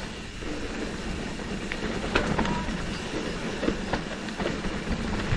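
Mountain bike rolling down a dirt trail: a steady tyre rumble with scattered sharp clicks and knocks as the bike rattles over rough ground.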